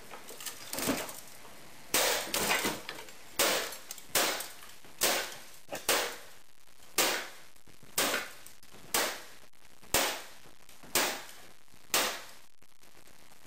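Metal baseball bat smashing an old VCR, about a dozen hard blows roughly one a second, each a sharp crack of plastic and metal with a brief rattle of debris.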